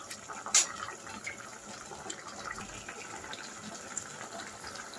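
A sharp knock about half a second in, then a steady watery hiss with scattered small pops.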